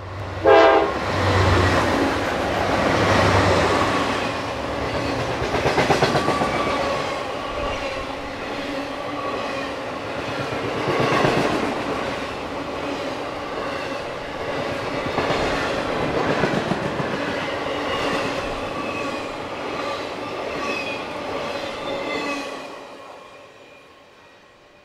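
Norfolk Southern intermodal freight train passing close: the lead GE Dash 9-40CW and EMD SD70M-2 diesel locomotives go by in the first few seconds with a sharp loud burst about half a second in. The train's wheels then rumble and click on the rails with steady ringing tones, fading out near the end as the last cars pass.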